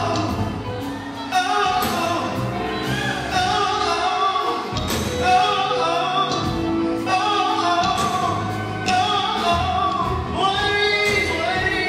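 Live gospel group performing: a male lead singer with backing singers over electric guitars, drums and keyboard.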